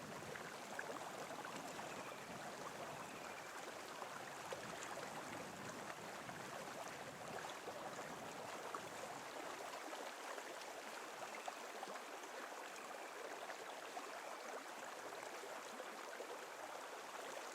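Faint steady rush of running water from a creek, an even hiss with no breaks.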